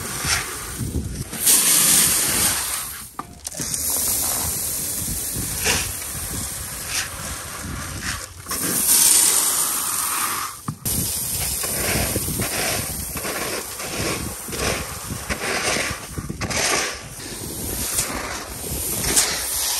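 Chickpea seed and fertilizer granules pouring from plastic tubs into a seed drill's metal hopper, a rattling hiss in several stretches with abrupt breaks between them.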